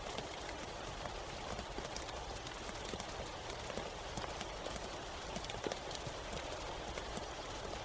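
Steady rain with many individual drops tapping irregularly on a hard surface.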